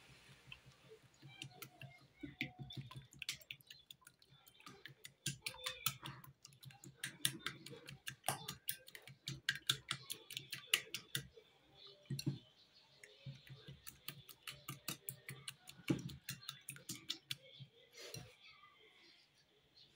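Wire whisk beating eggs in a small ceramic bowl: rapid, irregular clicking of the wires against the bowl, in spells, easing off near the end.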